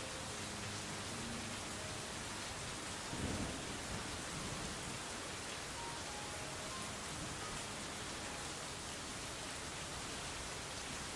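Steady rainfall, with a low rumble of thunder about three seconds in and a few faint, soft notes at different pitches scattered over it.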